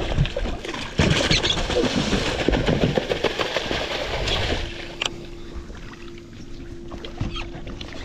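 A hooked fish thrashing at the surface beside the boat hull as it is brought in for the gaff: a few seconds of loud splashing that stops suddenly about halfway through, leaving lapping water and a steady low hum.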